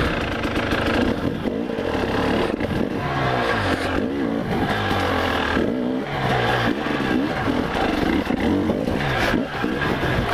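Enduro dirt bike engine revving up and down in short bursts of throttle as the bike climbs over rocky ground, with a few knocks from the bike on the stones.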